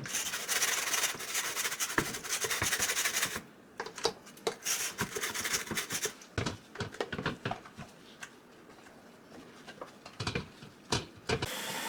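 Scrubbing a plastic humidifier part with soap, a dense scratchy hiss for about three seconds, followed by scattered clicks and knocks of hard plastic being handled, with a few more knocks near the end.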